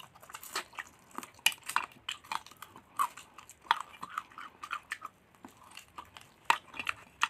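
Close-up chewing and crunching of crispy fried duck eaten by hand, with wet mouth smacks and bites at the bone. The crunches and smacks come irregularly, several each second.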